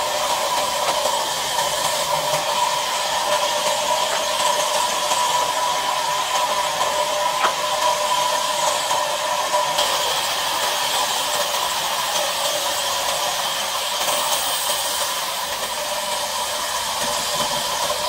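Sawmill band saw running and cutting lengthwise through a log, a steady whine over an even rushing noise that holds at one level throughout.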